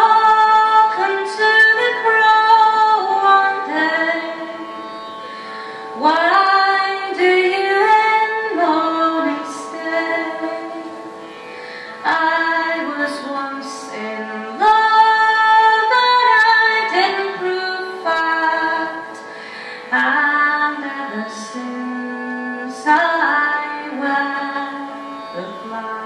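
A woman singing a slow folk melody in long held notes, accompanied by chords on a Yamaha CP50 stage piano. New phrases begin every three to six seconds, each entering loudly and then fading.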